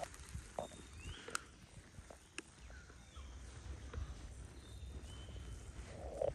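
Jungle ambience: short rising chirps and whistles repeat every second or two among scattered clicks and rustles, over a low rumble.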